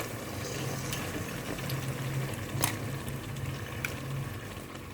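Thick onion-tomato masala simmering and bubbling in a pot on the stove: a steady soft bubbling sizzle with a low hum underneath, and a few light clicks.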